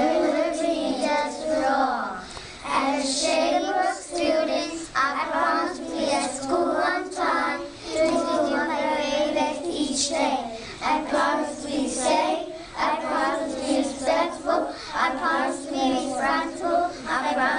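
A group of young children singing together in unison, in held phrases with short breaks.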